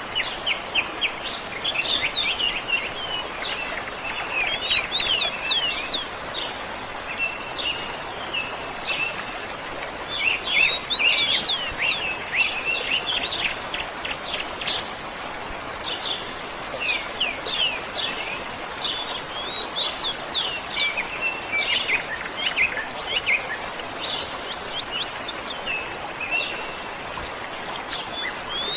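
Many birds chirping and calling, in quick runs of short sweeping notes, over the steady rush of a waterfall.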